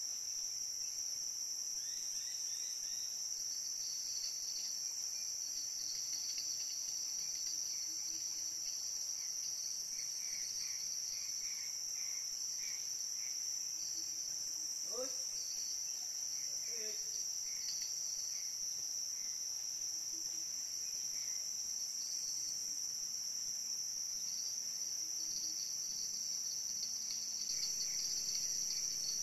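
Steady high-pitched chorus of insects, unbroken throughout, with a few faint short calls in between.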